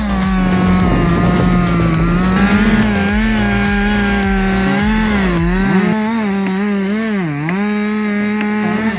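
Chainsaw running at high revs, cutting wood. Its pitch holds steady at first, then sags and recovers several times in the second half, dipping deepest about seven seconds in.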